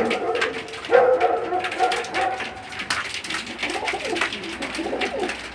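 Domestic pigeons cooing, several coos in turn, loudest in the first second or two and softer after that, with light scattered clicks.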